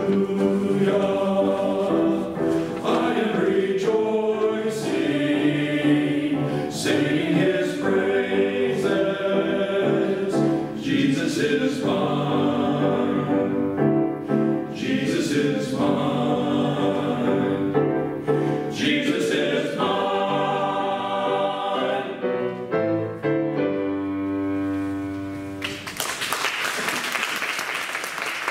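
Men's choir singing with piano accompaniment, closing on a held final chord; applause breaks out near the end.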